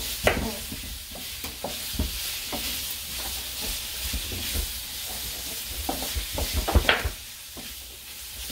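Meat sizzling steadily in a frying pan, with a kitchen knife knocking on a plastic cutting board as sweet potatoes are cut; the knocks come thickest and loudest about six to seven seconds in.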